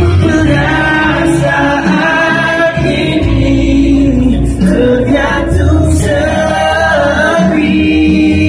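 Male vocalist singing a Malay pop ballad live into a handheld microphone, over accompanying music, with held notes that bend in pitch.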